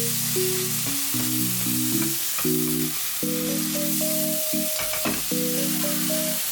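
Light background music of sustained chords and a simple melody over a steady sizzle of food frying in a pan, with a few light clicks about five seconds in.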